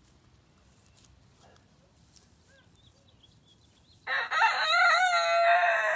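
A rooster crowing once, starting about four seconds in: a single loud cock-a-doodle-doo ending on a long held note.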